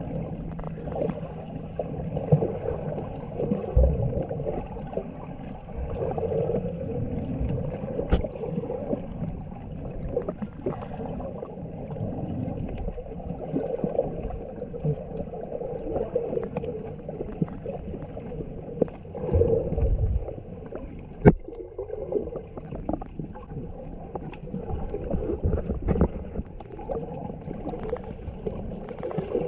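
Muffled underwater sound from a camera held below the surface while snorkelling: a dull wash of moving water with scattered clicks and knocks, including one sharp click about two-thirds of the way through.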